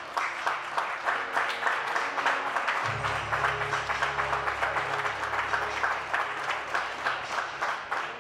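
Audience clapping in a steady rhythm, about three to four claps a second, over music; a low bass comes in about three seconds in.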